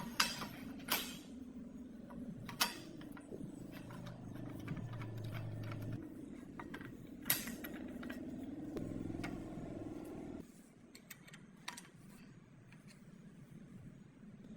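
Sharp clicks and knocks of hard objects being handled, over a steady hum that cuts off suddenly about ten seconds in.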